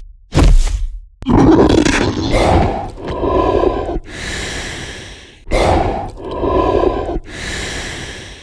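Monster creature sound effect: a hit about half a second in, then a run of growls and roars in four or five long rasping phrases.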